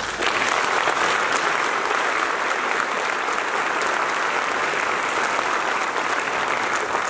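Audience applauding: dense clapping that starts suddenly and holds steady throughout.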